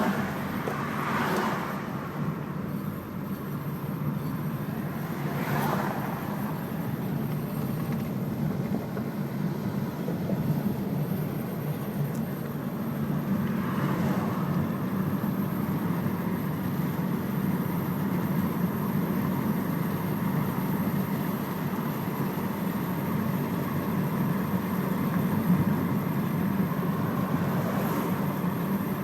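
A 2008 Honda car being driven: a steady low drone of running noise, with a few brief swells. The owner hears it as a grinding that stops when the brakes are applied and then comes back.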